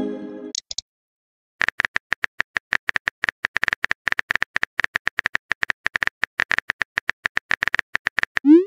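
Phone-keyboard typing sound effect: rapid, even clicks for about seven seconds as a message is typed out. It opens with the fading tail of a message-sent chime, and a short rising swoop of the next send sound starts right at the end.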